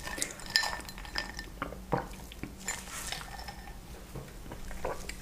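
Scattered light clinks and taps of a straw stirred in a drinking glass, with a brief ringing note about half a second in.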